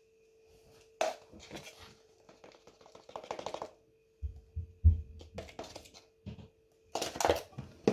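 Clicks, taps and a few low knocks of a container and kitchen utensils being handled on the worktop, in short clusters, over a faint steady hum.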